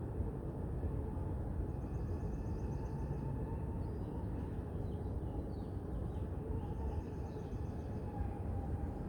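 Steady low rumble of wind and distant city traffic, with faint birds chirping over it, including a short, rapid high trill about two seconds in.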